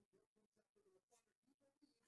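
Near silence, with a few faint soft ticks of trading cards being shuffled in the hands.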